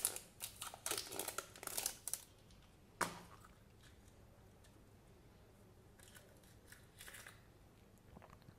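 Thin plastic seal band crinkling and tearing as it is peeled off a plastic surprise-egg capsule, then a single sharp click about three seconds in as the capsule's two halves snap apart. Faint rustling of the paper wrapping inside follows.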